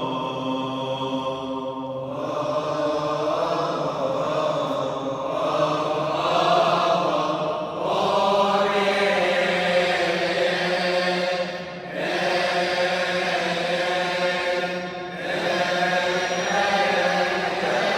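Cantor and male choir chanting a Coptic Holy Week hymn in the mournful (Hazayni) tune, with long held notes. The singing breaks for breath briefly near 2, 12 and 15 seconds in.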